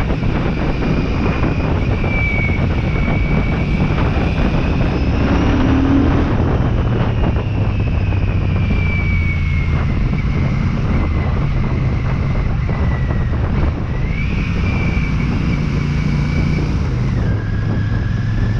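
Royal Enfield Shotgun 650's 648 cc parallel-twin engine under way on the road, its pitch climbing, slowly falling over several seconds, then climbing again as the rider opens and eases the throttle. Heavy wind noise on the microphone.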